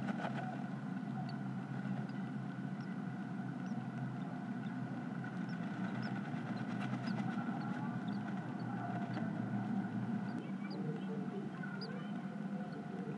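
Steady low hum inside a great tit nest box, with faint, short, high peeps scattered throughout, about two a second, from newly hatched great tit chicks.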